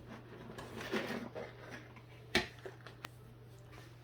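Handling noise as magnetic test leads are picked up: soft rustling, then a sharp click a little past two seconds in and a lighter click about a second later, over a steady low hum.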